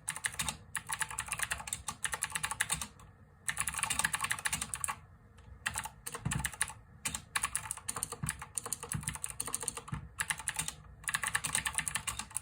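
Cooler Master CK550 V2 mechanical keyboard with clicky blue switches being typed on fast, in bursts of rapid key clicks broken by several short pauses.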